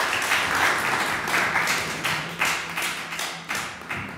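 Audience applauding, thinning out and fading to scattered separate claps, then cutting off suddenly near the end.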